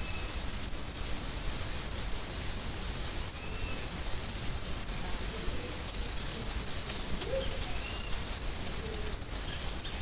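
Steady hiss from a trail camera's microphone, with faint short bird chirps about four times and a scatter of faint ticks in the middle.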